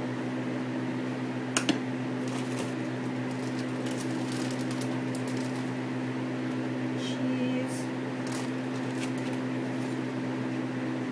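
A steady low machine hum with a droning tone runs throughout. There is a sharp click about two seconds in, and light crinkles and rustles of a plastic bag of shredded cheese being handled in the second half.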